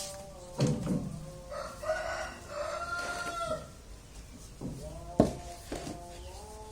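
A rooster crowing once, a call of about two seconds, over a soft steady melody. Two sharp knocks, the louder one about five seconds in.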